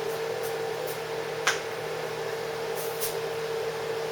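Stovetop range hood fan running on low, a steady hum with a constant tone. A few light clicks and ticks, the sharpest about a second and a half in.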